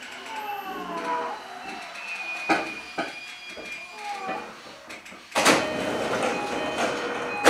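E233-series commuter train coming to a halt, its motors' whine falling in pitch in the first second, followed by a few knocks. About five seconds in the passenger doors slide open with a burst of hiss and rumble, ending in a sharp clunk.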